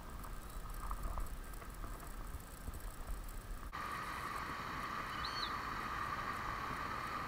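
Low wind rumble on the microphone by a pond, then, a little under four seconds in, an abrupt change to a steady rushing hiss of water from a small rock waterfall. One brief high chirp comes about a second after the change.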